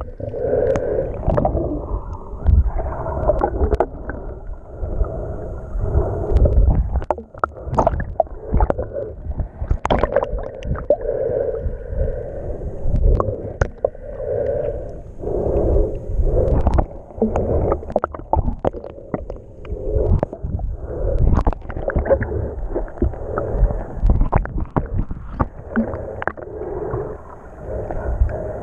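Muffled underwater gurgling and sloshing picked up by a camera held below the surface, with a swell of sound every second or two and many small clicks and knocks.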